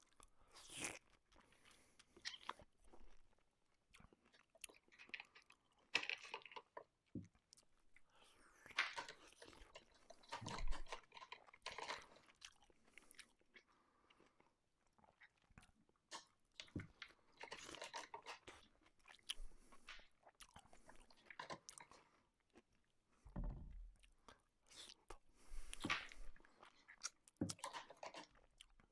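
Baby doll's electronic eating sounds: faint chewing and munching noises in short bursts, repeating every second or two as a toy spoon is put to its mouth.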